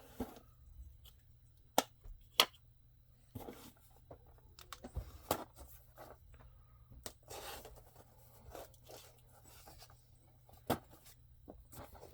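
A package being opened by hand: packaging tearing and rustling in short stretches, with a few sharp clicks scattered through.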